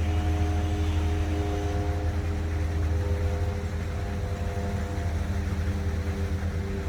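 Urban ambience dominated by a steady low mechanical drone from distant city machinery, with a few held tones that shift in pitch, over an even hiss.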